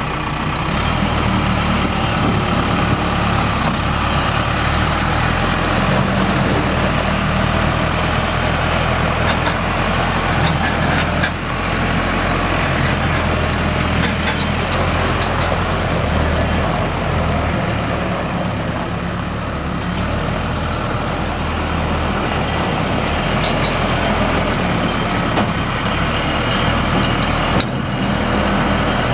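A Case 570M XT tractor's four-cylinder diesel engine running steadily, its pitch shifting a little at times.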